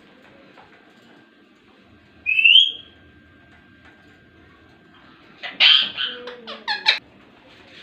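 Ringneck parrot calling: one loud, short, rising call, then a couple of seconds later a quick run of chattering, speech-like calls.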